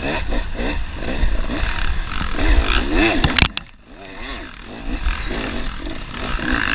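Dirt bike engine revving up and down under throttle, heard close up from the bike being ridden. About three and a half seconds in there are a couple of sharp knocks, and the engine note drops away abruptly for about half a second before it comes back on.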